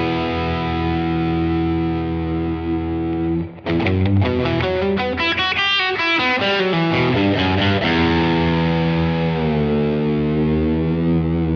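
Overdriven electric guitar with a delay effect: a 1996 Fender American Stratocaster with high-output noiseless pickups, through overdrive pedals and a Blues Senior 40-watt combo, captured by a Universal Audio OX Box. A held chord rings, breaks off briefly, then a quick run of notes trails echoes. Another chord is held to the end, its pitch sagging partway through.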